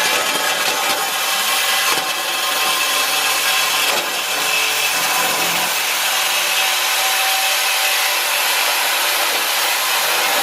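Power tool cutting through a truck's steel exhaust pipe to remove the muffler, a loud continuous metal-cutting hiss and whine.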